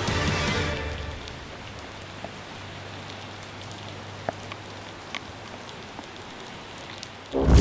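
Soundtrack music fades out over the first second, leaving steady rain hiss with a few scattered drops. Loud music cuts in just before the end.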